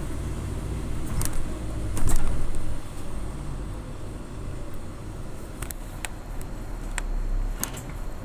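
A low, steady engine rumble that swells louder about two seconds in, with a handful of sharp clicks scattered through it.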